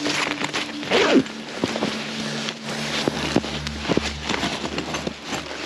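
Irregular crackling and rustling of tent fabric and snow being disturbed at the tent doorway, over background music with low held notes.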